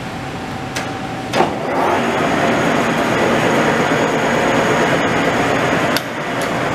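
Leblond Regal engine lathe running with a steady mechanical drone. A clunk about a second and a half in is followed by louder running with a high whine, and there is a short click near the end.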